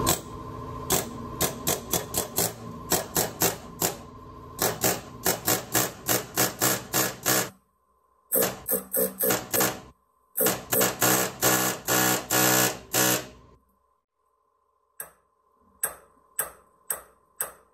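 Repeated sharp metal-on-metal strikes, about three a second, of a pickle fork being driven into the seam between a ball joint and the A-frame to pop the joint apart. A steady hum runs under the strikes and stops about three-quarters of the way through, after a short pause the strikes resume more slowly.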